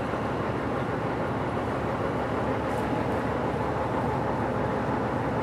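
Steady rumble of heavy diesel mining machinery, with a faint steady hum.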